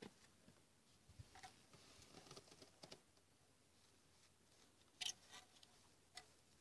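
Faint crinkling and rustling of a small plastic sachet of talcum powder being handled and squeezed to dust powder onto a car door check strap, with a few small clicks. The loudest click comes about five seconds in.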